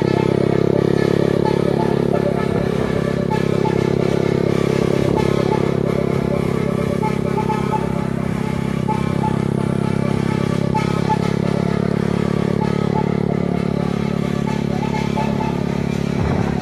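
A vehicle engine running steadily at cruising speed while on the move.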